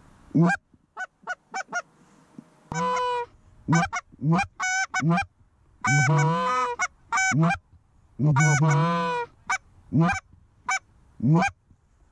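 Canada goose calling blown on a hand-held goose call: a quick run of short clucks, then bursts of honks and longer moaning notes, loud and close.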